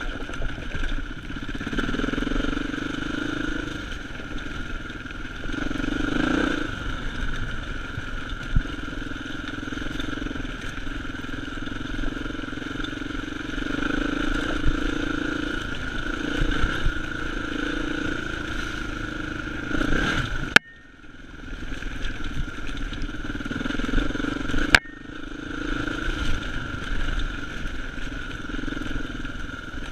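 Dirt bike engine running as it is ridden along a rough forest trail, the revs rising and easing with the throttle. About two-thirds through, the sound drops away suddenly and returns about four seconds later.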